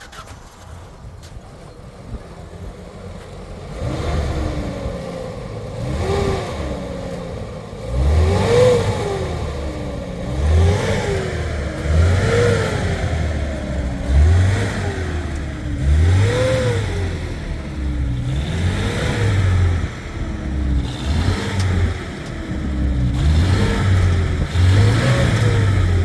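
A vehicle engine is revved up and dropped back over and over, about every two seconds, like a driver rocking a vehicle that is stuck in snow.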